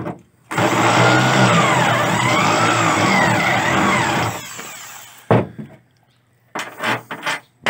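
Corded electric drill boring a hole into a pickup truck bed: the motor runs hard for about four seconds under a wavering high whine from the bit, then winds down. A sharp knock follows about five seconds in as the drill is set down on the bed.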